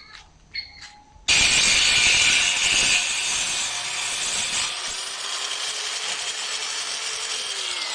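Angle grinder cutting steel box bar. It starts suddenly about a second in with a loud, hissing grind, then eases a little and carries on steadily.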